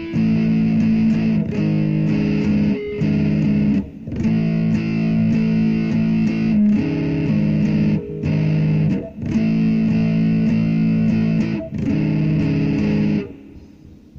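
Electric guitar playing held chords that ring for a second or two each, with short breaks between them. The playing stops about a second before the end.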